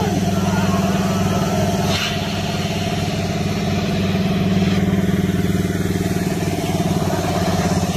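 A heavy vehicle's engine running steadily at an unchanging idle, with a constant low, pulsing hum.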